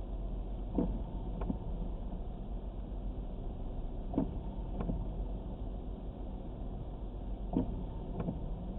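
Inside a stopped car with the engine idling low, the windshield wipers run on an intermittent setting. Three times, about every three and a half seconds, comes a pair of soft knocks about two-thirds of a second apart as the blades sweep up and back.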